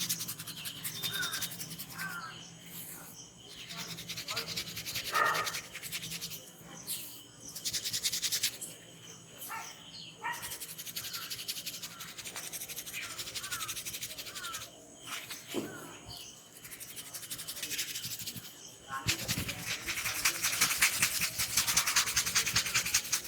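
Hands rubbing and massaging a person's head, hair and ears close to the microphone: rapid scratchy strokes in spells, densest and loudest in the last few seconds. A few short bird chirps in the background.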